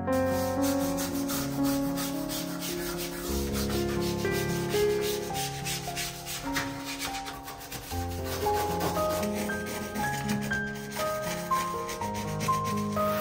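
Small stiff-bristled brush scrubbing a stainless steel sink in quick, repeated back-and-forth strokes, over soft background music.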